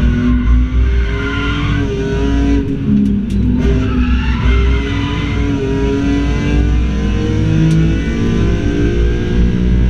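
BMW M3 race car's engine heard from inside the cabin, revving hard with its pitch rising and falling through gear changes and corners. The tyres squeal twice, about a second in and again around four seconds in.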